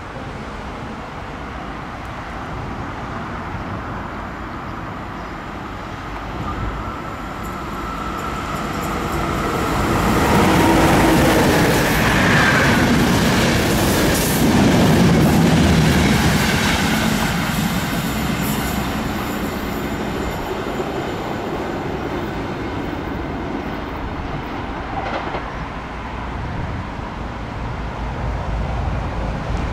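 A train passing: its rumble grows louder for several seconds, peaks around the middle, then slowly fades, with some thin high-pitched tones near the loudest part.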